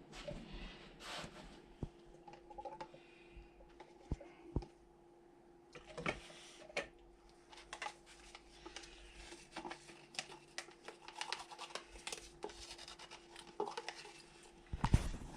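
Clear lacquer being stirred and handled in a small mixing cup: faint scattered scrapes, taps and clicks, over a faint steady hum that stops near the end, with a louder clatter in the last second.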